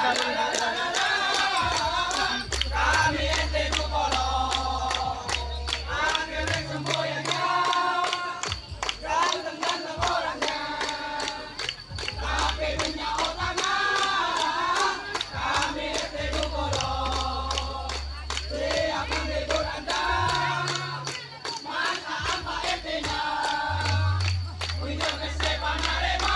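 A group of voices singing a melody over music with a deep, sustained bass line, with frequent sharp claps throughout.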